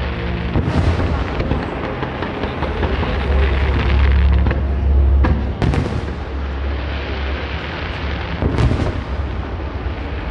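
Aerial fireworks going off in a continuous rolling boom, louder in the middle, with sharp cracks about a second in, near the middle and near the end.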